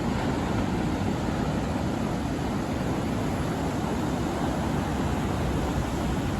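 Steady rushing noise of ocean surf and wind at the beach, even and unbroken.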